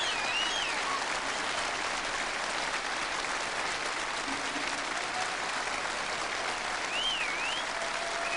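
Large concert-hall audience applauding steadily, with a short high whistle rising and falling about seven seconds in.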